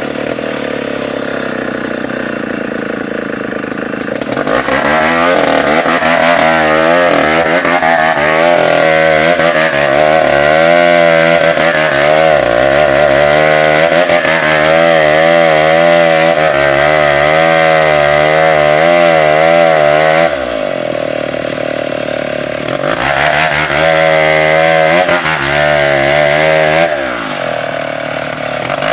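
Tecogold 700 two-stroke chainsaw idling, then revved to full throttle about four seconds in and held there, its pitch wavering under load as it cuts bengkirai hardwood. It drops back to idle about twenty seconds in, revs up again for a few seconds, and falls back to idle near the end.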